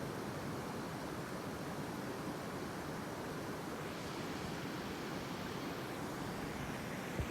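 Water flowing in a steady, unbroken rush. A brief low thump near the end.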